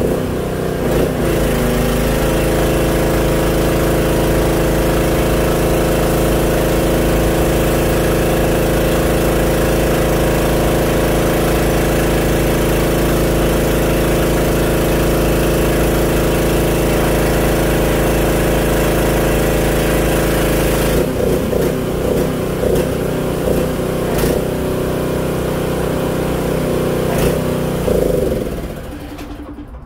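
An engine running steadily, going uneven about 21 seconds in and cutting off near the end.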